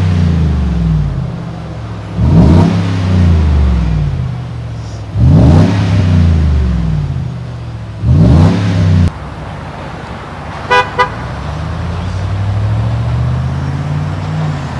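Dually pickup's V8 through a Borla Pro XS exhaust being revved repeatedly, about every three seconds, each rev climbing and dropping back. Two short horn toots sound about two-thirds of the way in, then the engine pulls away with a slowly rising note.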